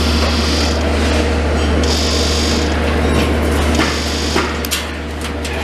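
Electric hydraulic pump unit driving a post-tensioning jack, running with a steady low hum. A rasping hiss repeats about every two seconds. The hum drops a little past the midpoint, and a few sharp clicks follow near the end.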